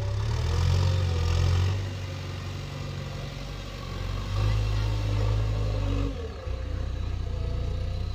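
Heavy diesel engine running close by, its speed and load rising and falling: louder from about half a second in, easing off around two seconds, swelling again at about four and a half seconds and dipping briefly near six seconds.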